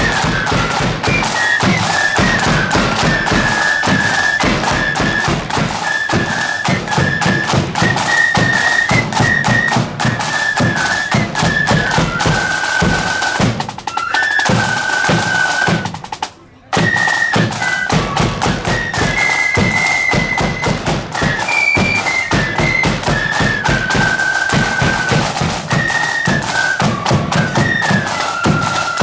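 Marching flute band playing: a high flute melody over a steady beat of bass and snare drums, breaking off for a moment a little past halfway before resuming.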